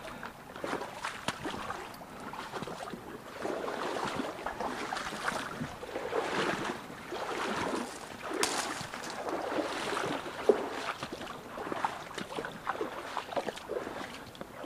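Footsteps and rustling as someone moves along the edge of a small stream through brush and leaf litter, in uneven swells of noise with a few sharp snaps.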